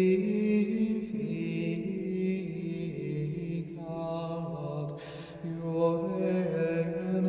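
Slow chanted vocal music with long held notes, changing pitch every second or two; a short hiss about five seconds in.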